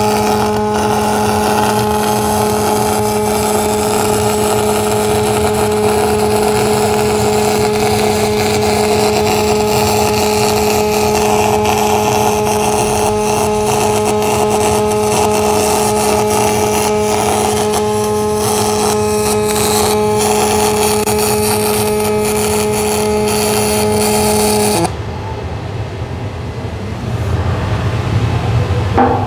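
Wire-feed (MIG) welding arc, a continuous crackling hiss with a steady hum beneath it, as a stay bolt is welded to the plate. It cuts off suddenly about 25 seconds in.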